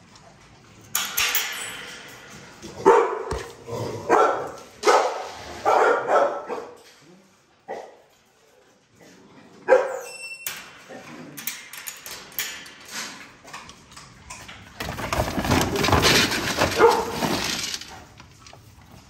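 Dogs barking in kennel runs: a string of loud barks about once a second early in the clip, then scattered sounds and a longer noisy stretch near the end.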